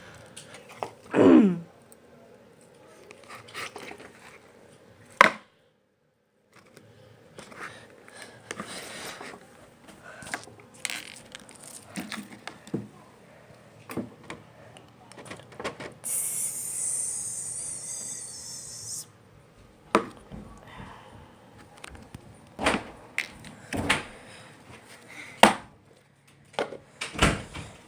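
Slime being played with by hand: sharp pops and clicks at irregular intervals, with a brief hiss about sixteen seconds in.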